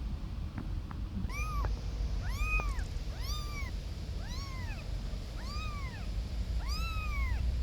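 A kitten meowing six times, about once a second, each cry rising and then falling in pitch, over a steady low rumble.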